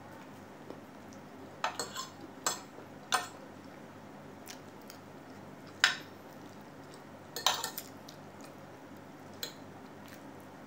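Metal fork and spoon clinking and scraping against a ceramic plate while eating, in scattered sharp clinks: a few in the first three seconds, the loudest about six seconds in, a small cluster about seven and a half seconds in and one more near the end.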